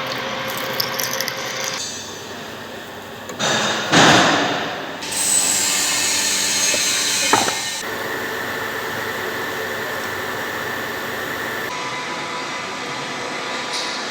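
Machine-shop sounds from a run of short clips: machine tools running and cutting steel bar stock, with steady machine hum and a few faint tones. About four seconds in comes a loud swell, followed by a high whine that falls slowly.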